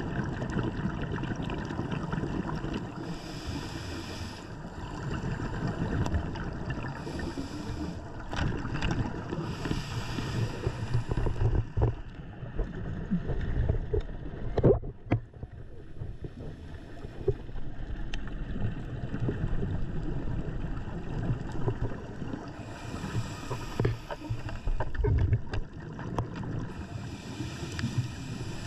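A scuba diver's regulator breathing heard underwater: several hissing inhalations and a low bubbling, crackling rumble of exhaled air. There is a single sharp click about halfway through.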